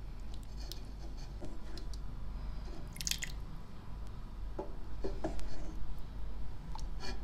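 Wooden spoon scooping thick bean, lamb and tarhana stew from a metal pan onto a china plate: soft wet squelches and plops with light clicks of the spoon, and a brief louder noise about three seconds in.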